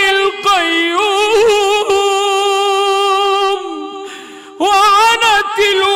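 A man chanting the Quran in melodic tajweed style, holding one long ornamented note that trails off about three and a half seconds in. After a short pause the chanting resumes.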